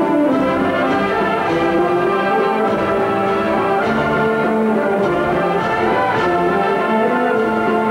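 Instrumental music with brass and orchestra playing long held notes.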